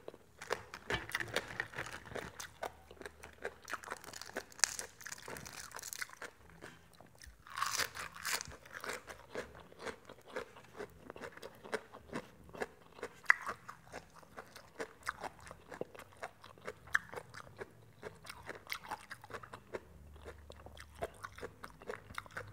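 A person biting and chewing crisp fried pork crackling (khaep mu), a steady run of small crunches with a louder crunching stretch about eight seconds in.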